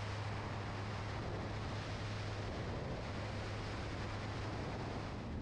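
Steady drone of a Flyer Pelican 500BR light aircraft in flight: its Rotax 912S four-cylinder boxer engine and propeller running at a constant setting, with a steady low hum under airflow noise.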